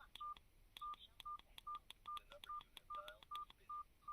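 Feature phone keypad beeping as its buttons are pressed: about nine short single-pitched beeps, each with a click, a little over two a second.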